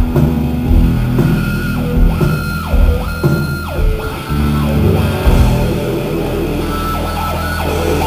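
Rock band playing loud on stage during a sound check: drums, bass guitar and electric guitar through the PA, with a few guitar notes sliding down in pitch around the middle.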